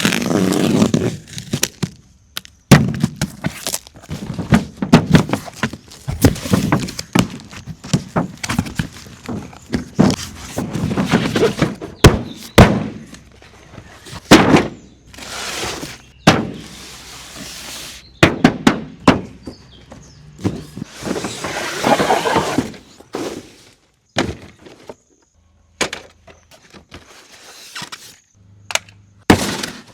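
Toy backhoe loader and toy dump truck being worked by hand with loose soil: irregular plastic clatters and knocks mixed with gritty scraping and pouring as soil is dug and tipped, with short pauses between bursts.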